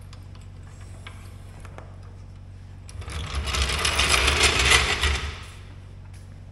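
A floor jack is let down from under a garden tractor with a few light clicks. It is then rolled out on its wheels across the concrete floor, a rattling, rumbling roll lasting about two seconds.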